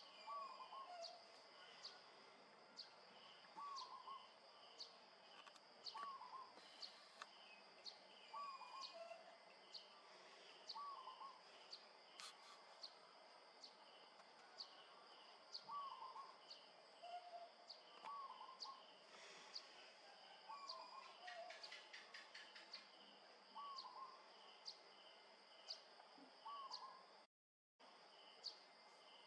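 Faint bird calls: a short hooked note repeated about every second and a half, now and then followed by a lower note. Underneath runs a steady high insect drone with evenly spaced ticks.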